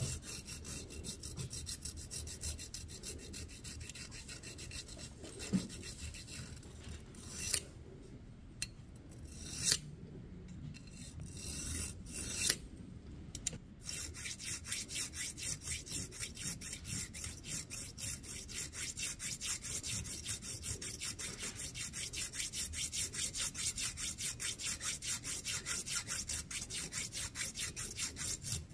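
Flat hand file scraping back and forth across the end of a steel bolt clamped in a vise, in quick, even strokes. There are a few short pauses with sharp knocks in the middle.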